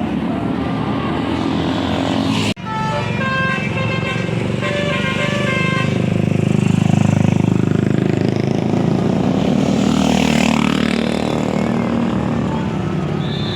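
Bus telolet horn, a Basuri multi-trumpet air horn, playing a stepping tune of short notes over the first few seconds, with a sudden break in the sound about two and a half seconds in. The bus's engine then grows loud as it passes.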